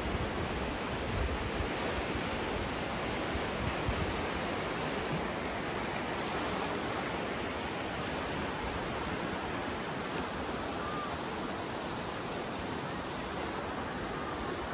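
Indus River in flood, its fast muddy water rushing past in a steady, unbroken noise.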